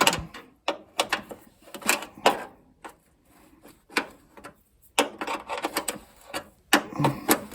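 Metal hand tools clicking and clinking in a string of irregular sharp knocks, with a quicker cluster of clicks about five seconds in.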